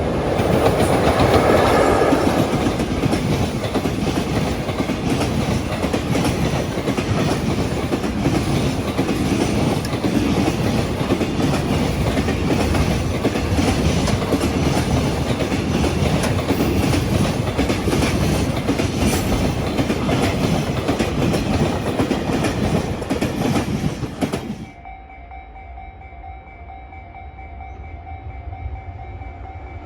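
Container freight train passing close by, its wagons rolling over the rail joints in a rapid clickety-clack, loudest a couple of seconds in. About 25 seconds in, the train noise cuts off abruptly. A much quieter level-crossing warning bell is left, ringing in even repeated tones.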